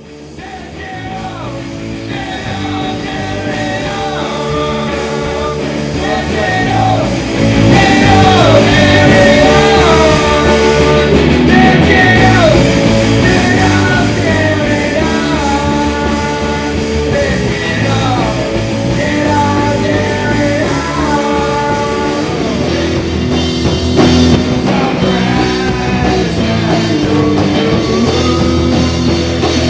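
Punk-core rock music with singing. It fades in over the first several seconds and reaches full loudness about seven seconds in.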